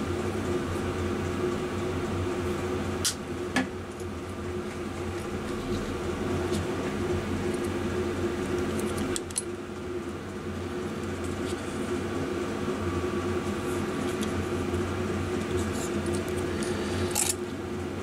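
Steady electric motor hum, like a fan or heater running, with a few small clicks and knocks of wire and tools being handled, twice about three seconds in and once near the end.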